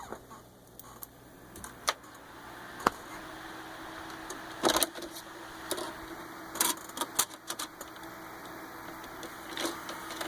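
Old desktop PC powering up: its fans spin up about two seconds in and settle into a steady whir with a faint hum, under scattered sharp clicks and knocks.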